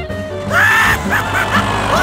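Background music with held low notes, overlaid by a quick series of short, high-pitched squeaky glides that rise and fall.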